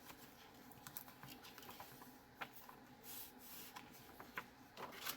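Faint paper handling: light taps, ticks and a soft swish as pages of a handmade junk journal are turned and touched.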